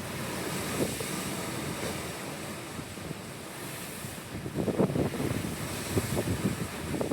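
Pacific Ocean water and surf with wind blowing across the microphone, a steady rushing hiss. Gusts buffet the microphone with a low rumble about four to five seconds in and again near the end.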